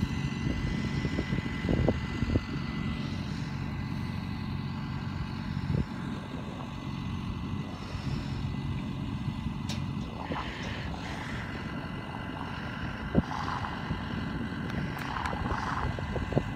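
Farm tractor's diesel engine running steadily, with a few sharp knocks.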